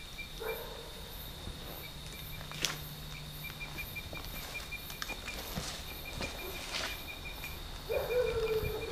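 Night insects chirring: crickets holding a steady high trill, with a second pulsing chirp over it. A few sharp clicks and scuffs, like footsteps on dry leaf litter, come through, and a brief low hum sounds near the end.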